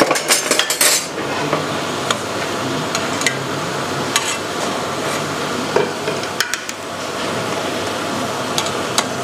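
Sugar syrup boiling hard in a kadai, a steady bubbling hiss, while a metal mesh strainer clinks and scrapes against the pan as the scum is skimmed off the top. There is a quick run of clinks in the first second, then single taps every second or so.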